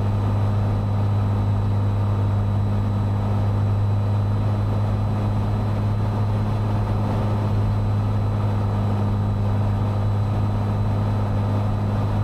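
Steady drone of a Cessna 182's piston engine and propeller, heard from inside the cockpit while it holds a steady setting on final approach.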